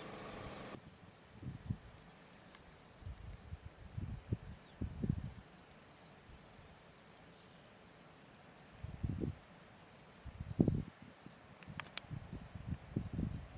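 An insect trilling a steady, fast-pulsing high note, with gusts of wind rumbling on the microphone now and then.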